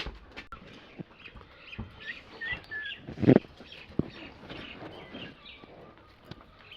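Pet parrot making short, scattered chirps and squeaks, with a few clicks and a brief louder thump about three seconds in.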